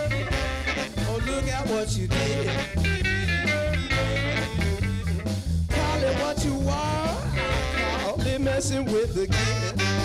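Live band playing an instrumental passage with a horn section of saxophones and trombone over electric guitar, electric bass, keyboard and drums, in a swinging, ska-like groove.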